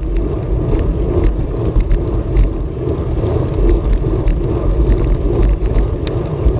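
Steady, loud wind rush on the camera microphone mixed with road rumble from a bicycle being ridden at speed.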